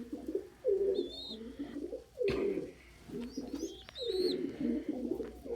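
Domestic pigeons cooing: several low warbling coos, one after another, the kind of cooing males make while showing off. A few short high chirps come in between.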